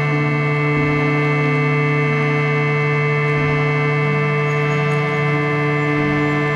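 Harmonium playing a sustained drone of steady held tones, with a slow melody of long held notes shifting in pitch above it.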